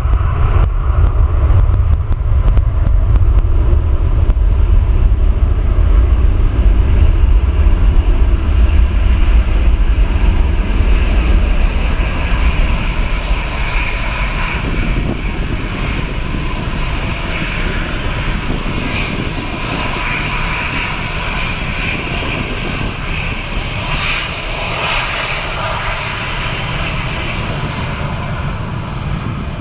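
GE90 turbofan engines of a Boeing 777-300ER airliner taxiing. A loud low jet rumble for roughly the first twelve seconds eases off, leaving a quieter, steady engine whine.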